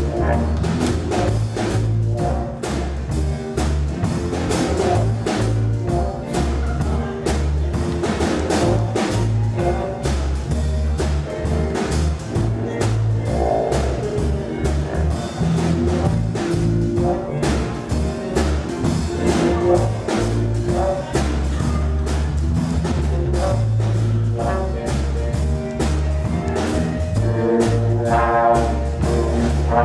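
Big band playing a jazz number live: brass section over a bass line and drum kit. A brass phrase stands out more loudly near the end.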